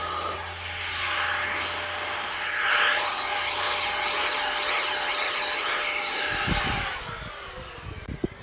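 Air blower hissing as it blows dust out of laptop cooling fans, with a thin steady whine under it; the air stops about seven seconds in and the whine slides down in pitch, followed by a few low knocks.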